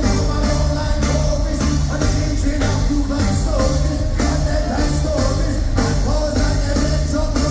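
Live reggae band playing loud, with a singer's voice over a steady, pulsing bass line.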